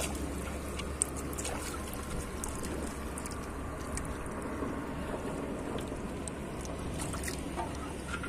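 Shallow pond water lapping and trickling around a person working in it, a steady wash of noise with a few faint clicks.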